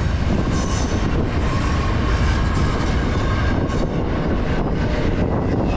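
Empty double-stack intermodal well cars of a Norfolk Southern freight train rolling past, their steel wheels rumbling steadily on the rails. A faint high squeal comes and goes over the rumble.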